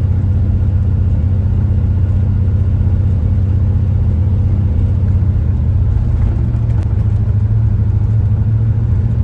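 Steady low drone of a camper's engine and road noise while driving, heard from inside the cab.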